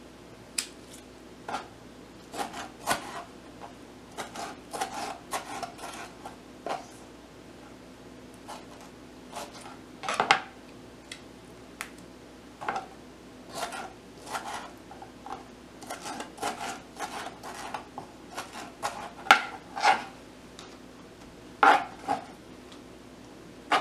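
Kitchen knife chopping and scraping tomatoes on a plastic cutting board, with irregular taps and knocks and handling of the board.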